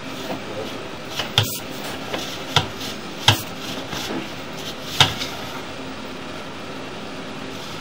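Irregular sharp knocks and clacks, about five of them, over a steady background hum, from the sewer inspection camera's push cable and reel being worked as the camera head is fed along the pipe.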